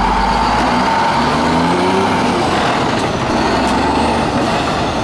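Truck engine running steadily, a sound laid over a toy concrete mixer truck as it comes out. It eases off slightly near the end.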